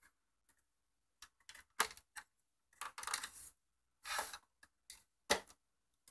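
Plastic back cover of an LCD monitor being pried open with a screwdriver: scattered clicks and short scrapes of plastic as the snap-in clips along the bottom edge work loose, with a sharp click about five seconds in.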